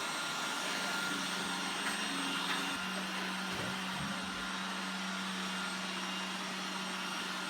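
Roomba 980 robot vacuum running, a steady whir with a constant low hum.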